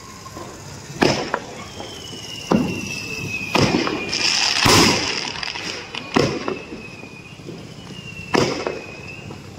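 Aerial fireworks going off: about five sharp bangs a second or two apart, with a crackling burst around four to five seconds in. A thin high whistle slowly falls in pitch between the bangs.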